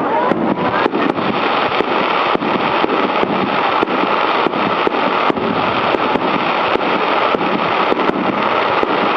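Aerial fireworks going off in a dense barrage: many sharp bangs, several a second at irregular intervals, over a continuous loud crackling rumble.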